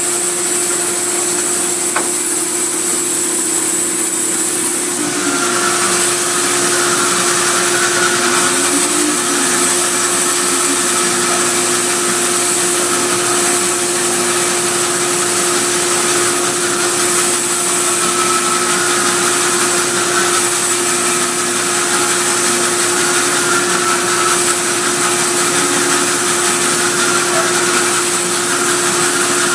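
Vertical sawmill driven by a newly fitted 10 hp electric motor, running steadily with a constant hum. About five seconds in, a wavering whine joins it.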